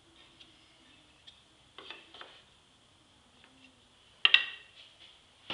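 Wooden crate slats being handled and set down on a wooden guide: a couple of light knocks about two seconds in, then one sharp wood-on-wood clack a little past four seconds as a slat is laid down, and more clattering at the very end.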